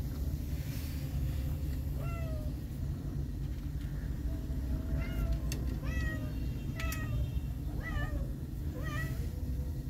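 Tiny kittens mewing: about six short, high-pitched mews, each rising then falling in pitch, starting about two seconds in, over a steady low hum.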